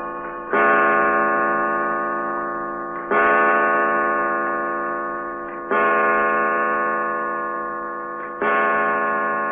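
A clock chiming the hour: four deep, ringing strokes about two and a half seconds apart, each fading slowly before the next.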